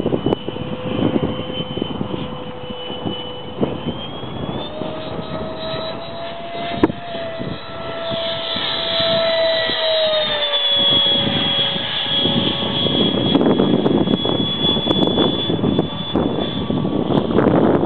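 90 mm electric ducted fan of an RC F-16 jet whining in flight overhead. Its pitch rises about four seconds in and falls away around ten to twelve seconds in. Wind buffets the microphone, and there is a single sharp click about seven seconds in.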